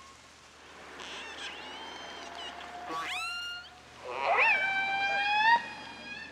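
Recorded killer whale (orca) calls: a series of pitched calls that glide up and down. One sweeps sharply upward about three seconds in, and the longest and loudest starts about four seconds in.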